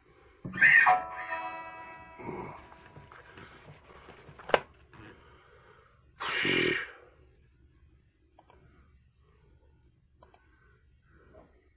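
Electric guitar struck once about half a second in, the chord ringing out and fading over a couple of seconds. Then come a sharp click, a short noisy rush about six seconds in, and a few faint clicks near the end.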